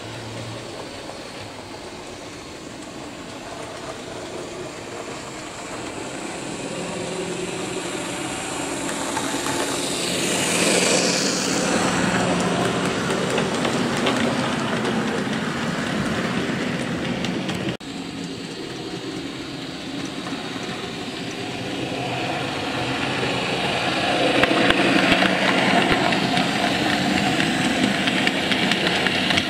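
Model Lima Class 31 diesel locomotive's electric motor whirring and the tank wagons' wheels rolling on the track, growing louder as the train approaches and passes. After a sudden cut in the middle it swells again, loudest near the end as the wagons and brake van go by close up.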